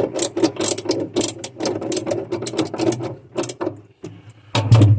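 Ratcheting screwdriver clicking in a rapid run as screws are driven, pausing near the end, followed by a louder knock.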